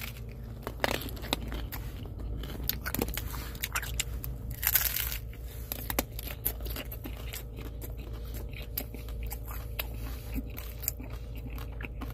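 A person biting into and chewing a street taco close to the microphone: a run of crisp crunching chews, with one louder crunch about five seconds in.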